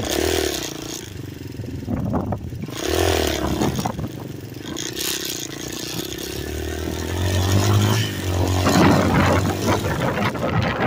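Hawk DLX 250 dirt motorcycle engine running and revving up and down several times while riding over a dirt and gravel track.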